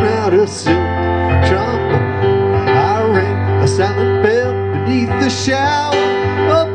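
Live electronic keyboard playing an instrumental passage: held chords over a steady low bass, with a melody line that slides up and down in pitch.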